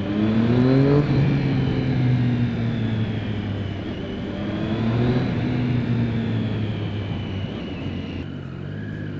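Triumph Street Triple 675R's 675 cc inline three-cylinder engine, heard from the rider's seat in a tunnel. It revs up over the first second, holds steady, rises again about halfway through and eases off near the end.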